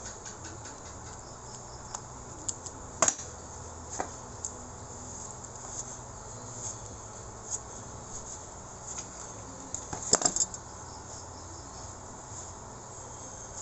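Scattered clicks and knocks of parts being fitted back into an electric demolition hammer during reassembly, over a steady background hiss. The sharpest are a double knock about three seconds in and a cluster of knocks about ten seconds in.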